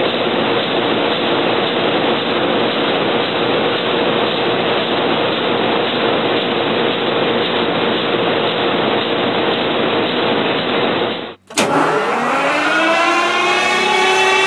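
A huge multi-cylinder engine running steadily. About eleven seconds in it cuts off abruptly, and a Caterpillar C175-20 106-litre V20 diesel is heard speeding up, its pitch climbing and then levelling off as it comes up to speed.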